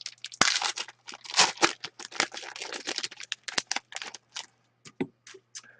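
A foil hockey card pack wrapper crinkling and tearing as it is opened: dense rustling for about four seconds, then sparser light clicks and rustles as the cards are handled.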